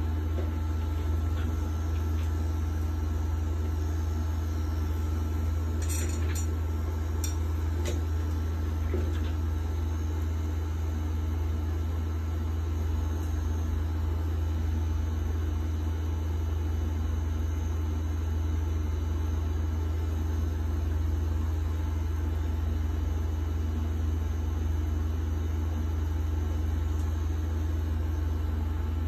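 Pen-style rotary tattoo machine running steadily as it inks skin, giving a continuous low hum. A few faint clicks come about six to eight seconds in.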